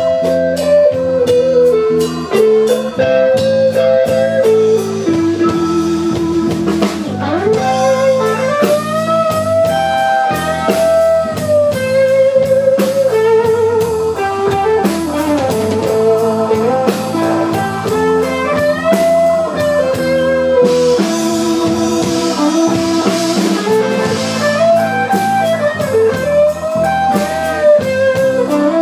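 Live blues band in an instrumental break: an electric guitar plays a lead solo with bent notes over drum kit and keyboard backing. A cymbal wash swells about two-thirds of the way in.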